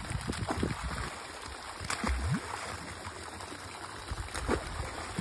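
Water gushing from a pipe into a pond, a steady splashing, with a few sharper splashes as young sturgeon are tossed into the water to stock the pond.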